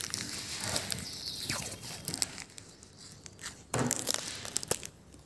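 Soft rustling and crackling with scattered clicks as cookie dough is pinched off and rolled by hand on a wooden table. A short, louder burst of handling comes a little under four seconds in.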